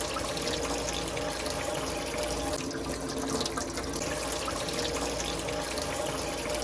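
Tap water running steadily into a sink and draining away freely, the blockage having been cleared with a drain cleaner.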